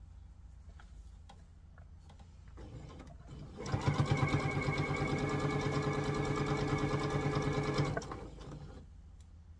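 Electric sewing machine stitching a seam: the motor builds up about three seconds in, runs at a steady speed with a fast, even beat for about four seconds, then slows and stops about a second before the end.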